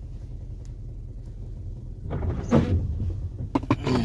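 Steady low rumble inside a car's cabin, with a few knocks and clicks in the second half.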